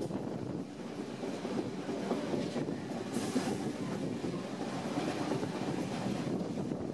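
Heritage train carriages running over the rails, a steady rumble of wheels with clicking over rail joints and points as the train rounds a curve, heard from an open carriage window. A brief higher hiss rises about three seconds in.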